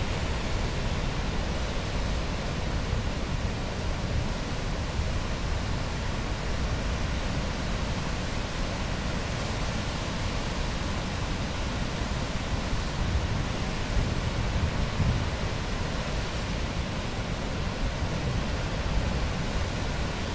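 Steady rushing noise of breaking ocean surf mixed with wind, heaviest in the low rumble and without a break.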